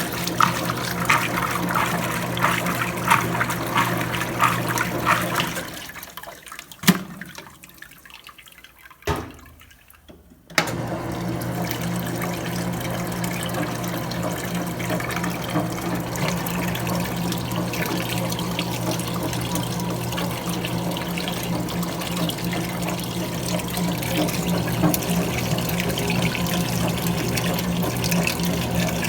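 Electrolux Prosdócimo washing machine running with water, with rushing water over a steady low motor or pump hum. It dies away about six seconds in, with two sharp clicks in the lull, then starts again abruptly about ten and a half seconds in.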